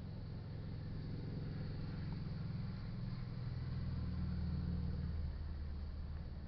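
Low engine rumble with a steady hum, growing louder and then easing off about five seconds in.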